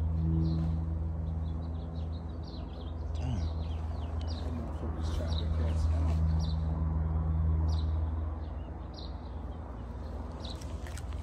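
Small birds chirping over and over in short, high calls, over a louder low steady hum that swells and then dies away about eight seconds in.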